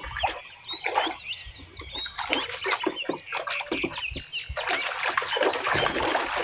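Water splashing as a muddy plastic toy gun is washed, with birds chirping in the background.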